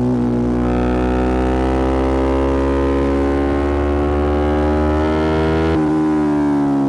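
Yamaha R125's single-cylinder four-stroke engine running through an aftermarket Black Widow exhaust. Its pitch climbs slowly as the bike pulls in gear, then near the end it breaks briefly and starts falling as the revs drop.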